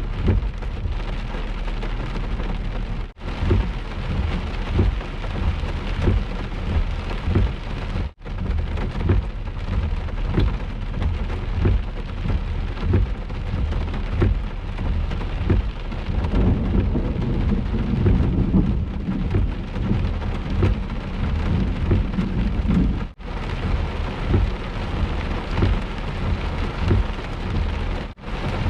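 Heavy thunderstorm rain pounding down, with many short low thumps and thunder rumbling, loudest about two-thirds of the way through. The sound cuts out sharply four times.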